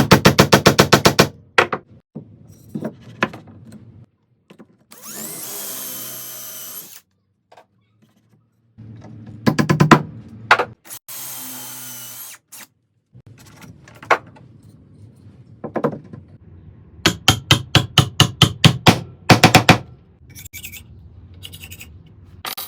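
Power drill boring into the end of a round wooden rod, run twice for about two seconds each, through a steel-pipe guide. Between the runs come several bursts of rapid sharp clicks or taps, about ten a second.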